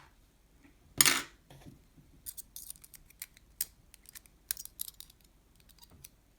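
Small metal clicks and scrapes as the last part inside a gutted Abloy Protec padlock is worked loose, with one louder scrape about a second in followed by scattered light ticks.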